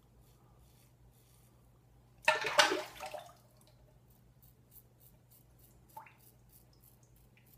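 Razorock Stealth slant safety razor scraping through lathered stubble in faint, short strokes, a few a second. A little over two seconds in, a loud splash of water lasting about a second, and a small knock about six seconds in.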